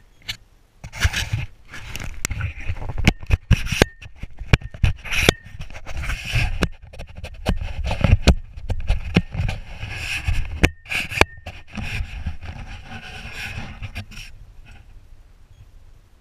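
Handling noise of a camera being gripped and adjusted right at the microphone: irregular scraping and rubbing with many sharp clicks and knocks. It dies away about fourteen seconds in.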